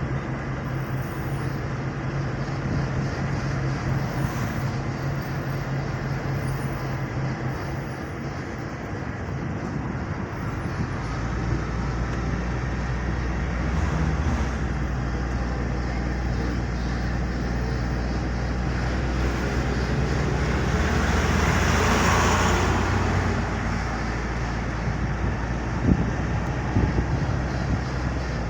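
Motor vehicle engine and road noise: a steady low engine hum that drops in pitch about a third of the way in, over a constant rushing wash that swells to a peak about three quarters of the way through.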